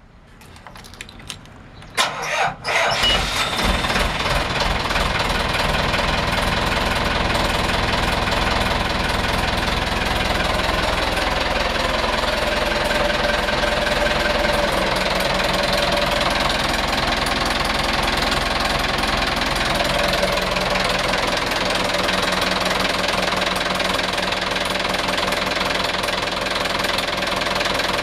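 Yanmar marine diesel inboard started with the key: a few faint clicks, then about two seconds in it cranks briefly and catches, settling into a steady diesel idle with a light knocking clatter.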